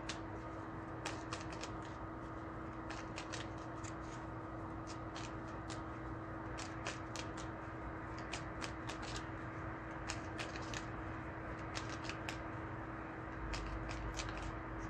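Tarot deck being shuffled by hand to draw clarifier cards: a string of irregular light card clicks and snaps over a steady low hum.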